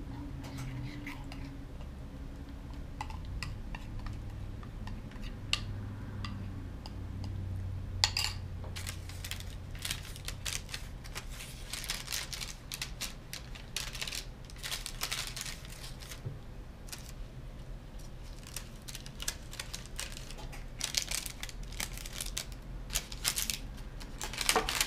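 A spoon scraping and clinking against a bowl as thick batter is scraped out, in a run of quick scrapes and taps that grow busier after the first several seconds.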